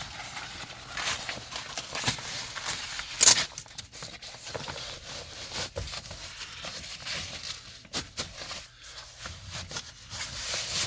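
Cordura seat cover fabric rustling and scraping as it is pushed and tucked into the gap between the seat cushions, with scattered clicks and one sharp knock about three seconds in.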